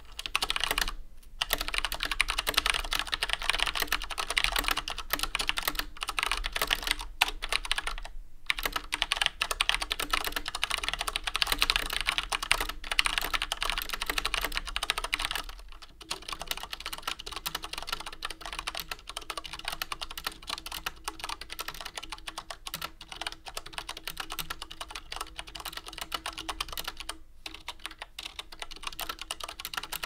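Fast continuous typing on a G.Skill KM570 mechanical keyboard with Cherry MX Brown switches, the keycaps bottoming out with a harsh plastic-on-plastic clatter. After a brief break about halfway through, the same typing continues with rubber O-rings fitted under the keycaps, now noticeably quieter and more muffled.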